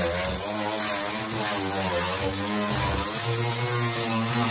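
Handheld electric power tool running against the wooden top of an old cabinet, with a steady hiss over a motor whine whose pitch dips and rises as it is pushed along.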